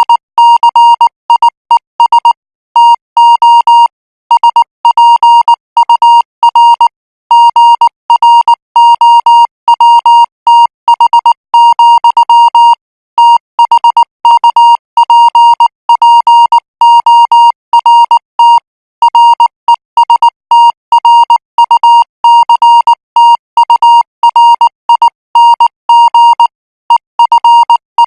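Morse code practice signal at 18 words per minute: a single high-pitched beep keyed on and off in short dots and longer dashes, grouped into characters with brief gaps between them.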